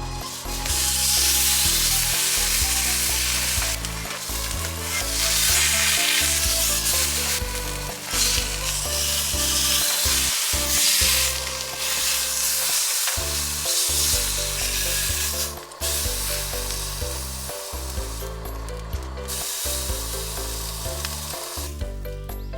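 Food sizzling in a frying pan, a dense hiss that fades and returns several times, over background music.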